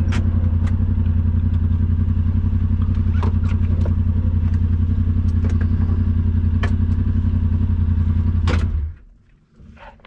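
Yamaha RMAX 1000 side-by-side's engine idling steadily, with a few sharp clicks and clatters over it, then switched off nearly nine seconds in.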